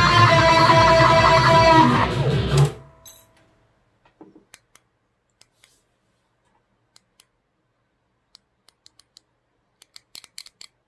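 Electric guitar played with strummed chords and ringing notes, stopping abruptly about two and a half seconds in. After that there is near silence with a few faint clicks, coming more often near the end.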